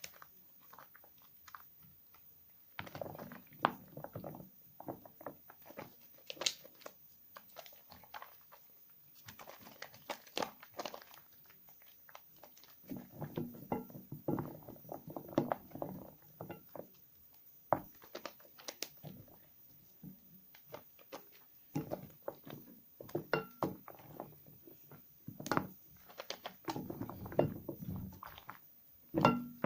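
Small scraps of soap being lathered and squeezed in wet hands: irregular bursts of crackling with sharp clicks, with short pauses between them.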